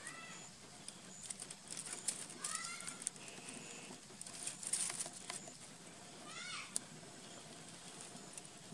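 Baby macaque giving three short squeaky calls, each rising then falling in pitch, over the crackle of dry leaves that it is handling.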